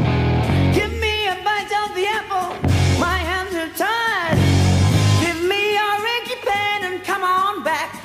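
Heavy metal band recording of electric guitar, bass guitar and drums, with a lead line that slides and bends in pitch.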